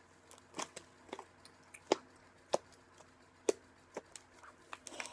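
Fluffy slime (white glue with saline and borax) being kneaded and stretched by hand, giving off irregular sharp pops and clicks as air pockets in it burst.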